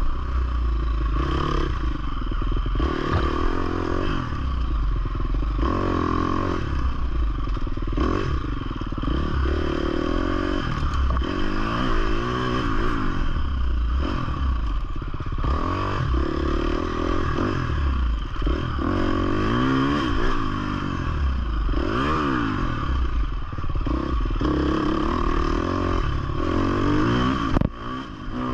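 2020 Husqvarna FC 350 four-stroke single-cylinder dirt bike engine revving up and down again and again as the throttle is worked on the trail, with rattling and clatter from the bike over rough ground. The engine note briefly drops away near the end.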